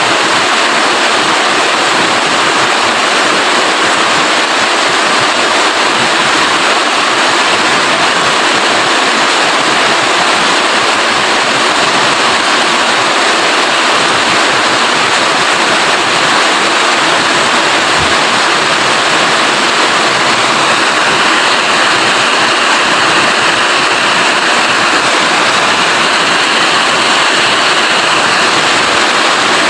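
Steady heavy rain, an even hiss of falling water that does not let up.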